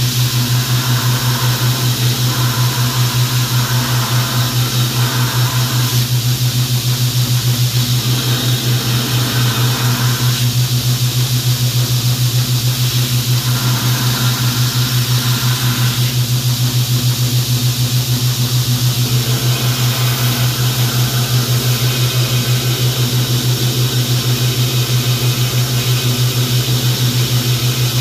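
Belt grinder running with a steady low hum while a 1095 steel knife blank is ground against the belt in repeated passes, the higher grinding noise coming and going every few seconds as the blade is pressed on and lifted off.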